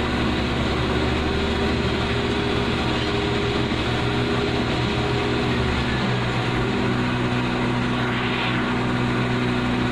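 Toyota Vios engine idling steadily, heard from inside the car. About six seconds in the running note shifts as the electric radiator cooling fan cuts in, with the coolant at about 94 °C.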